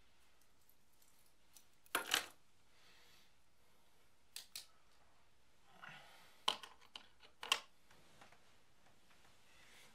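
Small metal objects and a pair of glasses being set down on a wooden nightstand: a metallic clatter about two seconds in, two light clicks near the middle, then some rustling and a few more knocks later on.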